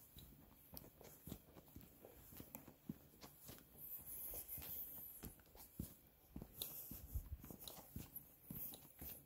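Faint, irregular crunches and knocks of footsteps on a hiking trail, with light rustling.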